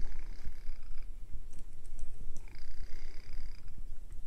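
Gear train of a model traction engine turned over by hand at the flywheel, giving a rough low rumble. Twice, once at the start and again from about two and a half seconds in, a higher whirring squeak lasts about a second as the gears and water pump move.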